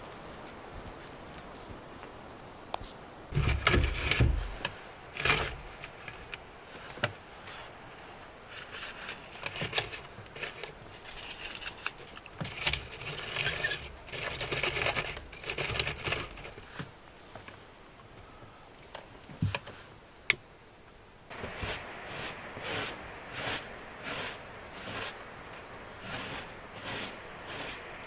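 Scraping and metal clatter of hands working at a small sheet-metal wood stove, with one sharp click a little past the middle. After a short lull comes a run of regular scraping strokes, a bit more than one a second.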